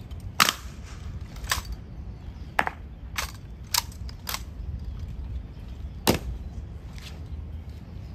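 Sharp, irregular slaps and knocks of an honor guard's rifle drill, about eight in all, over a steady low rumble. The loudest strikes come about half a second in and about six seconds in.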